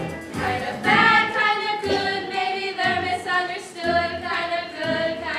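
Several young female voices singing a musical-theatre song together, holding long notes over musical accompaniment.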